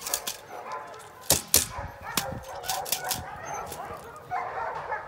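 Eight-week-old Belgian Malinois puppy giving short, high-pitched barks while tugging on a bite tug, with two sharp knocks about a second and a half in.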